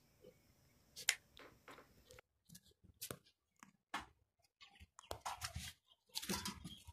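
Faint, scattered scratching and crunching of small Gultair puppies moving over dry dirt and straw, sparse at first and growing busier near the end.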